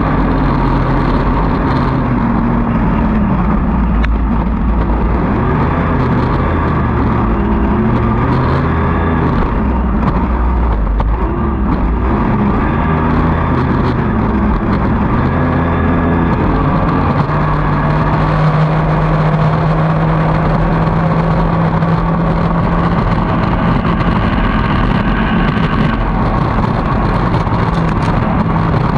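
Evinrude outboard racing engine running flat out, its pitch rising and falling in the first half, then holding one steady note for several seconds near the end. Rushing wind and water spray run underneath it.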